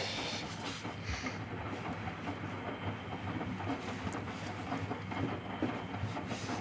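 Miele washing machine spinning, its drum running with a steady rumble and irregular low knocks as the machine sways: the shock absorbers are worn out.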